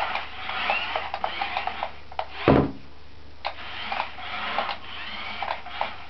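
Small electric motors of toy remote-control cars whining in short spurts, their pitch rising and falling as they drive, with scattered clicks and one loud thump about two and a half seconds in.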